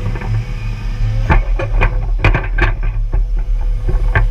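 John Deere 200 excavator running steadily with a low drone. Over it come sharp irregular clanks and knocks from the bucket and thumb as they work the mud: a cluster from about a second in to nearly three seconds, and another just before the end.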